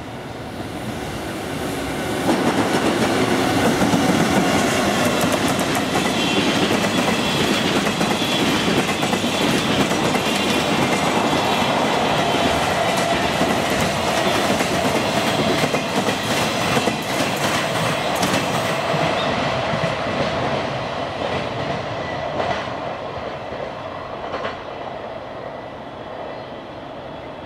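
A freight train hauled by an EF65 electric locomotive rolls past: a steady rumble with wheels clicking over the rail joints. It grows loud about two seconds in and fades as the last wagons move away near the end.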